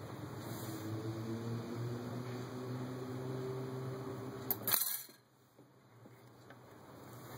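Handling of a cut-off tin can lid and can opener: a low steady hum, then a sharp metallic click about four and a half seconds in. Right after the click the sound drops away abruptly.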